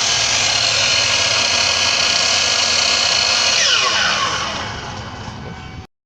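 Aluminium cutting saw's electric motor running at full speed with a steady whine. About three and a half seconds in it is switched off and winds down, its pitch falling, until the sound cuts off just before the end.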